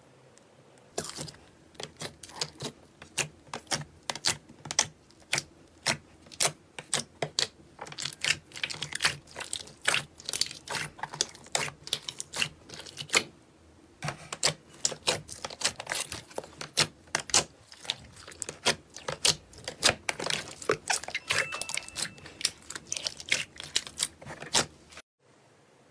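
Hands pressing and squeezing a tray of glossy slime, making a fast, irregular run of sharp sticky pops and clicks. It starts about a second in and stops abruptly near the end.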